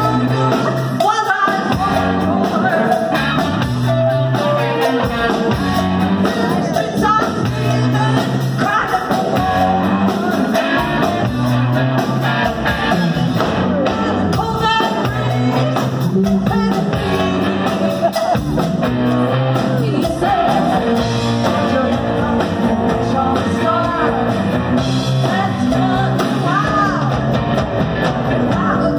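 Live rock band playing a song: electric guitar, bass guitar and drum kit, with a sung lead vocal.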